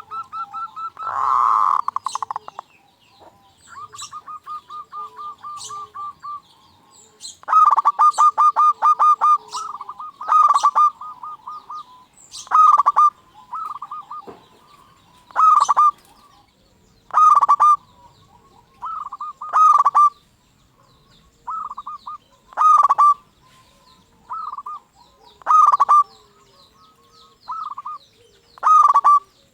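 Local zebra doves (perkutut) singing: short bursts of rapid, stuttering coos repeated every two to three seconds, with a louder, rougher burst about a second in.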